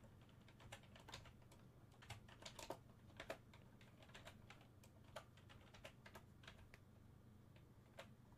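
Faint typing on a computer keyboard: irregular key clicks, a few to several a second, over a low steady hum.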